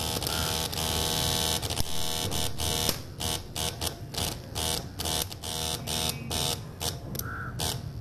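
Arc from a homemade AC stick welder built from a microwave oven transformer, buzzing and crackling as the electrode welds steel bolts. The arc runs without a break for about three seconds, then sputters on and off in short bursts.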